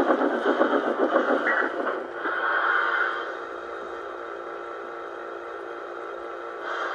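LGB G-scale model locomotive running on garden-railway track. A dense rattle of wheels and gearing lasts about two seconds, then comes a brief higher tone, and after that a quieter, steady motor hum.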